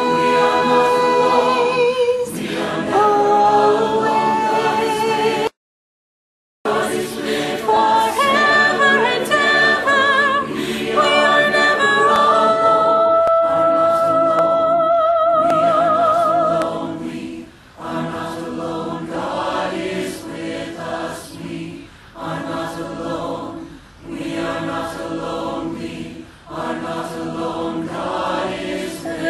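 A large virtual choir, many separately recorded voices mixed together, singing in several parts. The sound cuts out completely for about a second early on; later comes a long held note with vibrato, then shorter chords that pulse in a steady rhythm.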